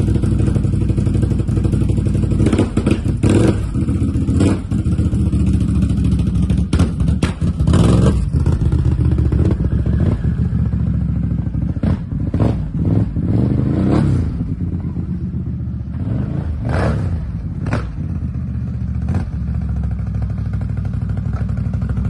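A Can-Am Outlander XMR 850 ATV's V-twin engine runs as the quad is ridden on 32-inch mud tires, with sharp clattering knocks every second or two.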